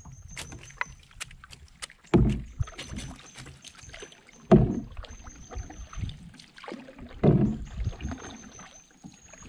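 Paddle strokes in the water from a small boat: three heavy swishes about two and a half seconds apart, with light knocks and clicks between them.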